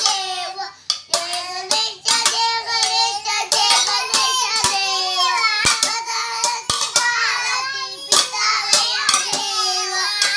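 Two young children singing a devotional bhajan while banging stainless steel plates together like cymbals. Irregular metallic clangs punctuate the chanted singing throughout.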